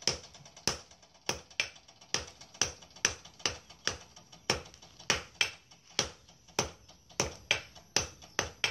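Hand hammer forging a red-hot iron keris blade blank held in tongs on an anvil block: a steady run of sharp metal-on-metal blows, about two a second, each with a short ring.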